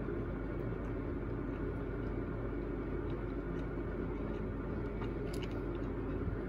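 Steady background hum and hiss, with a few faint clicks about five seconds in.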